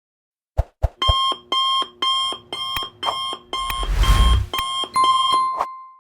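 Countdown timer's alarm clock going off: a couple of clicks, then repeated electronic beeps about twice a second, signalling that the countdown has run out. A noisy burst sounds in the middle, and the beeping stops near the end on a last held tone.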